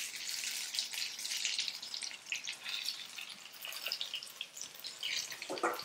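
Hot oil sizzling and crackling faintly and steadily, as from bondas deep-frying in a kadai.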